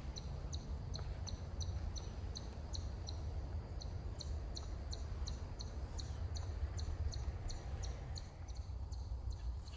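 Steady rhythmic high-pitched chirping, about three short chirps a second, over a constant low rumble.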